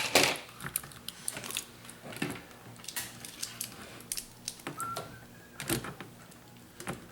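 Irregular clicks and taps of hard plastic Bakugan toys being picked up and handled, with a sharper knock a little before the end.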